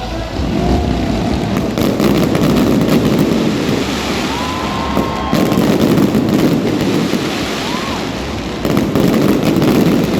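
Aerial fireworks bursting in a rapid string, three heavy booms a few seconds apart, each followed by a long low rumble and crackling.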